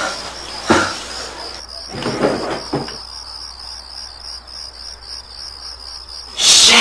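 Crickets chirping in a steady, pulsing high trill, with a few brief rustles and knocks early on as a drawer is opened, then a sudden loud burst of noise near the end.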